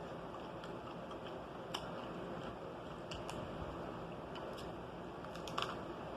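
Pizza being chewed close to the microphone: a few short, soft mouth clicks over steady background hiss.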